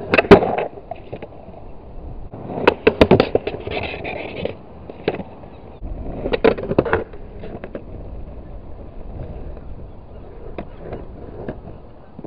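Skateboard wheels rolling over asphalt, broken by sharp clacks of the board hitting the curb, with a short scraping grind along the curb edge about four seconds in. The loudest clacks come in clusters in the first seven seconds; after that it is mostly rolling with the odd click.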